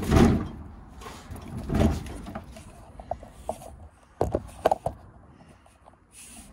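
Knocks and thumps of work at a wooden cabinet. There are two dull thumps in the first two seconds, then a run of sharp clicks and knocks about four to five seconds in.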